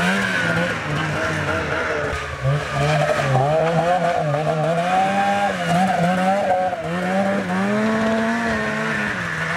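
Arctic Cat 370 snowmobile's two-stroke engine revving up and down as it rides along a snowy trail, the pitch rising and falling again and again.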